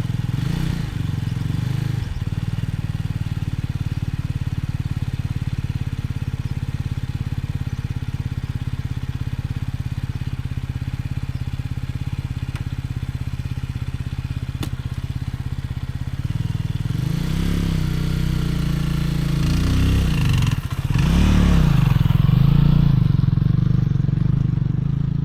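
Motorcycle engine running at a steady note, then revving up and down several times over the last few seconds.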